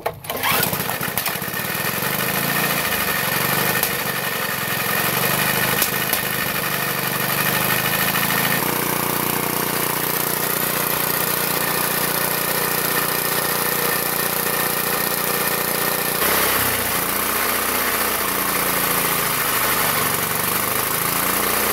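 Small single-cylinder engine of a reel lawn mower running on hydrogen fed through a hose into its air intake. Its speed shifts about eight seconds in and again about sixteen seconds in, as the hydrogen pressure regulator is adjusted between RPMs.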